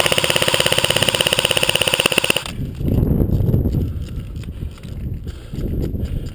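Airsoft gun firing a single full-auto burst of about two and a half seconds: a fast, even rattle of shots over a buzzing whine, stopping abruptly. Footsteps and rustling follow.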